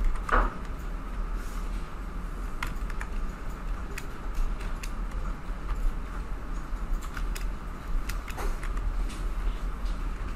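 Irregular clicks of a computer mouse and keyboard, a few times a second at most, over a steady low electrical hum.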